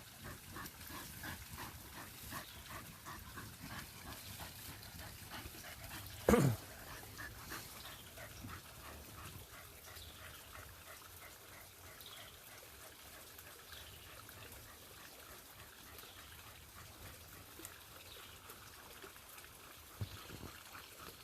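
A dog barks once, loud and brief, about six seconds in, over the faint scrabbling of dogs digging into a burrow.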